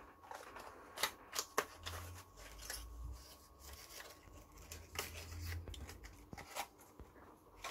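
Sharp clicks and light scraping from a snap-off utility knife being handled as its worn-out blade tip is renewed, the clearest clicks about a second in.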